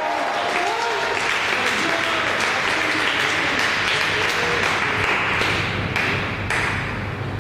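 Audience applauding, a dense steady clapping that thins out in the last second.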